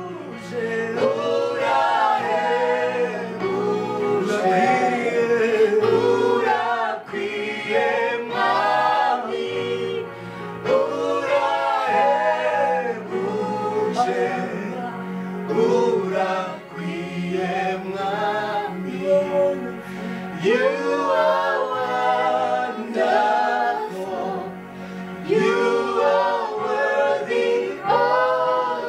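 Group of voices singing a gospel worship song in harmony over steady held bass notes that change every few seconds.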